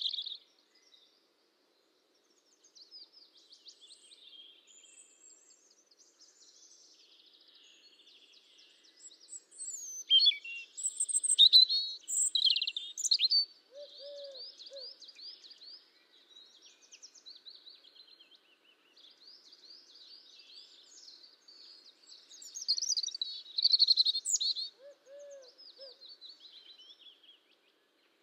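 Songbirds chirping and singing in quick trills and twitters, with two louder spells of song, about ten seconds in and again near twenty-three seconds.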